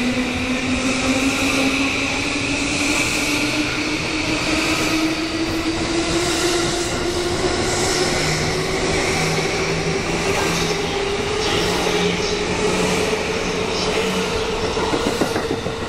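Electric commuter train accelerating away from the platform: its traction-motor whine rises steadily in pitch throughout, over the rumble and clatter of the cars rolling past.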